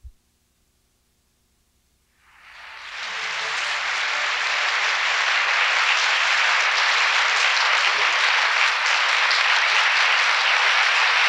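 A large theatre audience applauding, swelling in about two seconds in and then holding steady. A brief click sounds at the very start.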